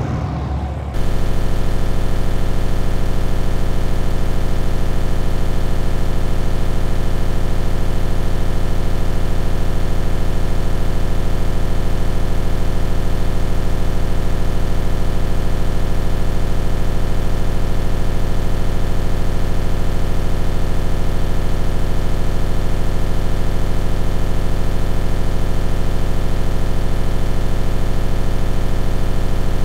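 Rescue helicopter's engines and rotor running steadily, heard from inside the cabin at the open door: a loud, even drone with many steady tones, setting in about a second in.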